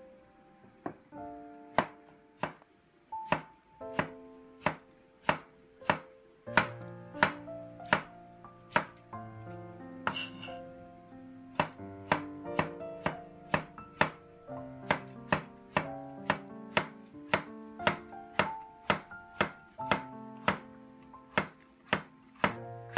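Cleaver chopping bitter melon on an end-grain wooden cutting board: sharp knocks of the blade on the wood in a steady rhythm of about two a second, over background music.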